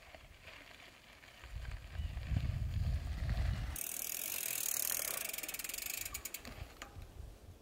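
Mountain bike rolling along a dry dirt trail: a low rumble in the first half, then tyre hiss and a rapid ratcheting buzz from the rear hub as the rider coasts past, dying away near the end.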